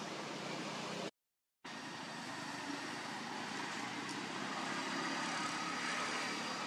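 Steady outdoor background noise, an even hiss and rumble with no distinct events. It cuts to dead silence for about half a second about a second in, then resumes.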